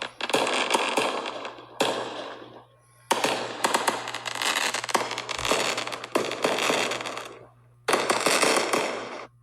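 Fireworks going off in several volleys, each a sudden burst trailing into dense crackling: one at the start, one just before 2 s, a long crackling stretch from about 3 to 7 seconds in, and a last volley near 8 seconds.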